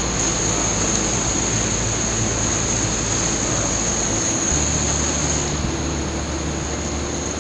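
Rushing white water of a river rapid, a steady hiss. Low steady tones run underneath and change pitch about halfway through.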